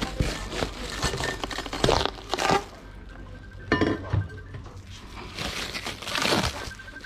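Stainless steel exhaust pipes clinking and knocking as they are handled and set down, with plastic wrap and bubble wrap crinkling as a wrapped pipe is pulled out of its cardboard box.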